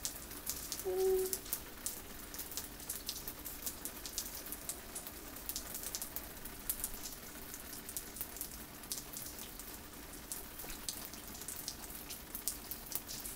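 Rain falling and dripping close by: a steady hiss with many sharp drip ticks. A short pitched sound about a second in stands out above it.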